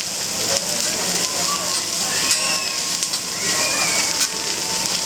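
Food sizzling on a hibachi griddle, a steady hiss, with people talking faintly underneath.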